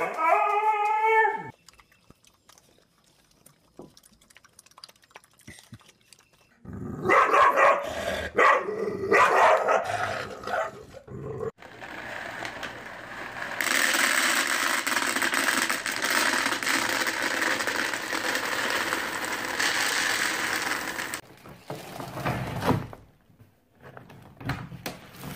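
A dog howls briefly at the start, one falling call. Several seconds later comes a louder stretch of calls and knocks, then a long steady rush of dry pet food pouring from a bag into a plastic bin.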